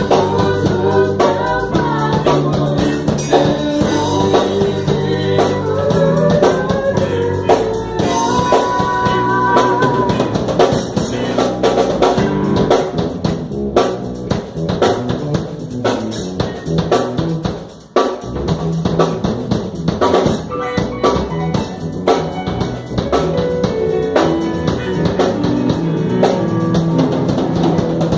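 Live band playing a gospel hymn: drum kit with bass drum and rimshots, bass guitar, electric guitar and keyboard, with a woman singing. The band drops out for a moment about eighteen seconds in, then comes straight back in.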